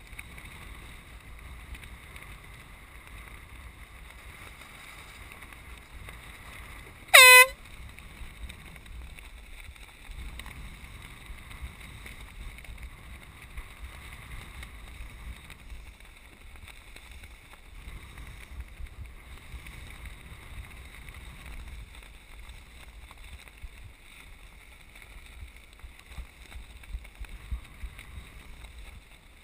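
One short blast of a handheld canned air horn about seven seconds in, sounded as a sailboat crosses the finish line. Steady wind noise on the microphone runs underneath.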